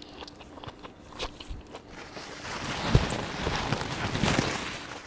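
Close-miked eating sounds: a person biting and chewing food, with scattered small mouth clicks that grow denser and louder in the second half.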